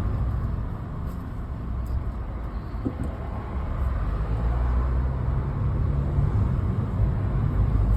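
Car interior road noise while driving: a steady low rumble of engine and tyres, growing a little louder about halfway through.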